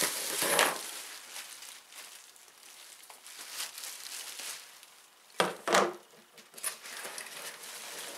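Plastic bubble wrap crinkling and rustling as it is handled and cut with scissors, loudest in the first second. Two sharp clacks come about five and a half seconds in.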